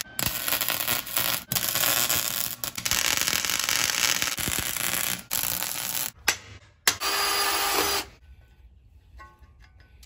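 Arc welder tack-welding a scrap-metal fairlead mount plate onto a tube bumper: the arc crackles and hisses in a run of long bursts with short breaks between tacks, and stops about eight seconds in.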